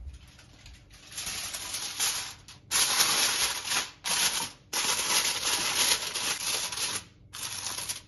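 Aluminium foil crinkling and rustling as hands press and smooth it over a baking dish, starting about a second in and going in four spells with short pauses.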